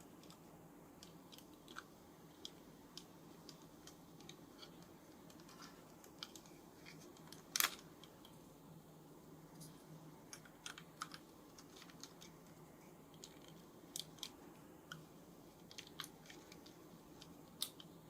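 Faint, irregular small plastic clicks and taps from handling a toy figure and its plastic packaging parts, with one sharper click about halfway through and a few more near the end.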